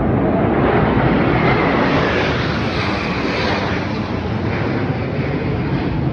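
Black Eagles' KAI T-50B jet aircraft passing overhead: a loud, rushing jet engine noise with a whine that falls in pitch about two seconds in, loudest near the middle.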